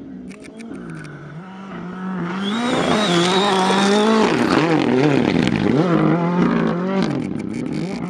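Rally car engine at full throttle, approaching and getting much louder, its pitch dropping and climbing again several times as it shifts and lifts. A few sharp cracks come near the start and near the end.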